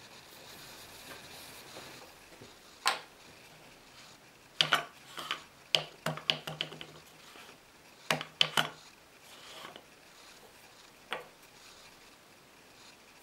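Knocks and clinks of wood and steel as a wooden chisel rack, its chisels and small wooden hook blocks are handled on a workbench. The clatter comes in separate bursts: once about three seconds in, a cluster a little after that, a pair about eight seconds in, and a last knock near eleven seconds.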